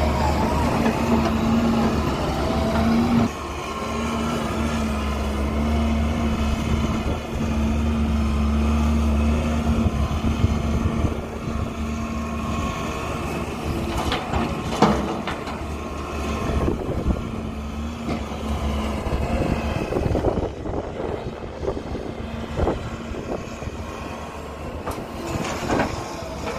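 Heavy diesel machinery, wheeled excavators loading a dump truck, running with a steady low drone. Scattered knocks and clatter come in from about halfway, and the drone fades about two-thirds of the way through.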